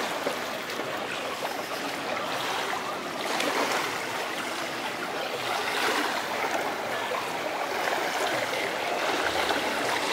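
Swimming-pool water splashing and trickling in a steady wash.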